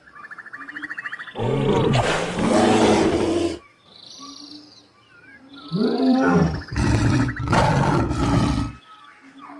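A large animal roaring, like a big cat, in two long loud stretches, with short chirps in the quieter gap between them.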